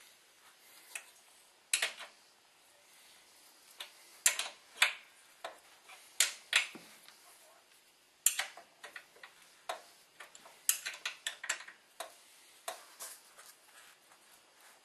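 Irregular sharp metallic clicks and taps from a wrench on a bolt, with a few quick runs of clicks past the middle, as the last engine-mounting bolt is fitted up through the snowblower's base and tightened.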